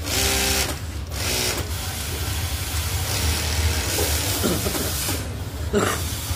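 Industrial sewing machine running while a shirt collar is stitched on, over a steady low hum of workshop machinery.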